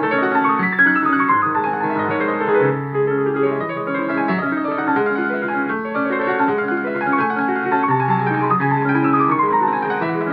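Solo piano music played back through a MiFa A10 Plus portable Bluetooth speaker, with a steady flow of chords and quick falling runs near the end.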